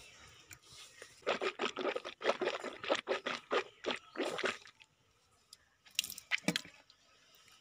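Wet swishing and scrubbing sounds of teeth being cleaned with warm salt water: a run of quick, irregular strokes for about three seconds, then two short ones near the end.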